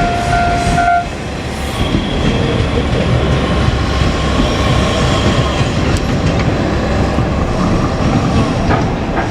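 A KiHa 47 diesel railcar pair running through a level crossing with a steady low rumble. A level crossing warning alarm with a ringing, pulsing tone cuts off about a second in.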